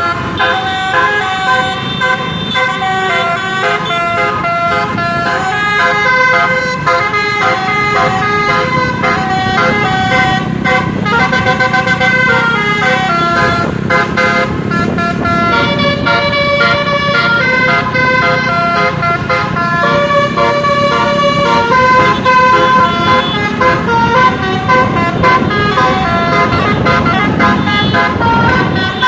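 Basuri multi-trumpet 'telolet' bus horn playing a cartoon theme melody note by note, with a steady low rumble underneath.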